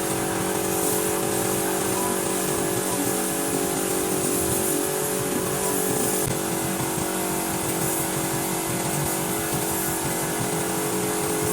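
A motor running steadily, with a constant hum and a strong high hiss.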